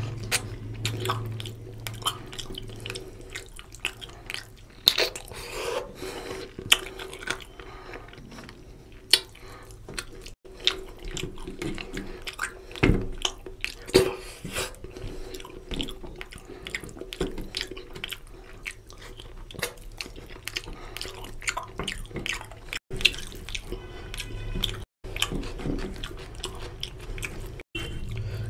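Close-miked chewing and wet smacking mouth sounds of a person eating mutton curry and rice by hand, in irregular clicks and smacks.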